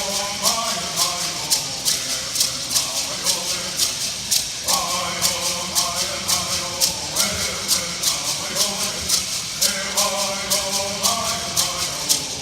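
Bird singers singing a traditional bird song in unison, in phrases with short gaps, over a steady beat of shaken gourd rattles.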